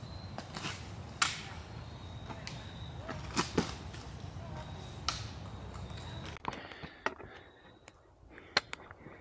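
A hiker's footsteps on a rocky trail, with scattered sharp clicks and knocks on the rocks, over a steady low rumble that drops away abruptly about six seconds in.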